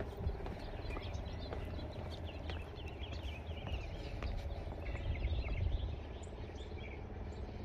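Small birds chirping and twittering throughout, over a low steady rumble, with occasional light ticks.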